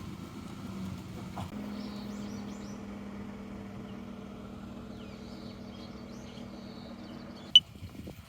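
Steady low mechanical hum, like a motor running, with small birds chirping faintly over it; a single sharp click near the end cuts the hum off.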